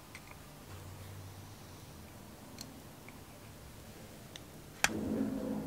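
Small brass screws and a brass end plate being handled on a rosewood spirit level, with a few faint clicks. Near the end comes one sharp click, then a rough, continuing grinding as a small screwdriver starts turning a brass screw into the wood.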